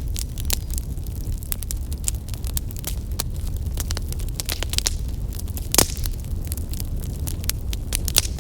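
Outdoor bonfire burning steadily: a low rumble of flames with dense, irregular crackles and pops of burning wood, and one louder pop about six seconds in.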